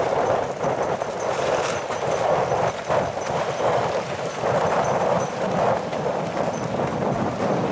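Rushing wind and water noise from a boat moving over choppy water, surging and easing unevenly about once a second.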